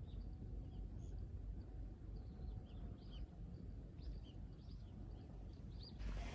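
Small birds chirping, with short high calls scattered throughout, over a low steady rumble.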